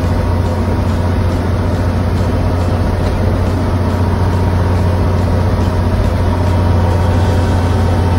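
Cummins 230 diesel engine of a 1965 Brockway 257T truck pulling steadily on the road, heard from inside the cab as a loud, even low drone.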